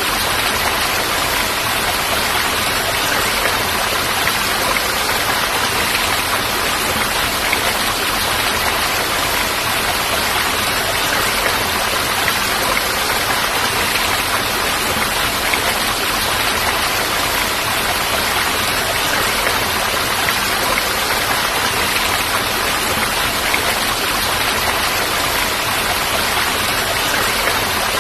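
Steady, unbroken rush of falling water, an even hiss with no separate drops or changes.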